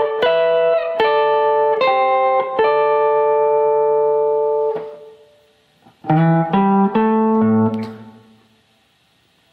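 Electric guitar playing a blues riff slowly in picked notes and double stops, struck roughly every half second and ringing out about five seconds in. After a short gap a second, lower phrase of a few notes sounds and fades away.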